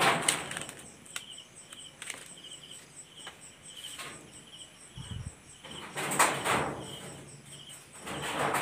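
Night insects chirping in a fast, even repeating pattern, with rustling and scuffing noises now and then that are loudest about six seconds in, and a brief low thump about five seconds in.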